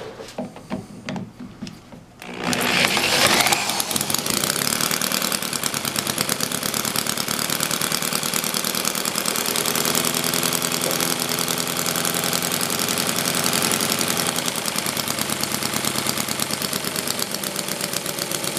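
Home-built twin-cylinder horizontally opposed spark-ignition model engine (7/8-inch bore, 3/4-inch stroke, cast-iron cylinders) spun over with an electric drill on the crankshaft. It catches about two seconds in and runs steadily with a fast, even exhaust beat, the cylinders firing alternately from a waste-spark dual-output coil.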